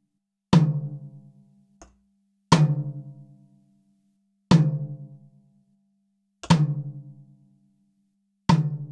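Recorded high tom drum hit played back on a loop through a transient designer plugin: five strokes two seconds apart, each a sharp attack followed by a low pitched ring that fades over about a second and a half.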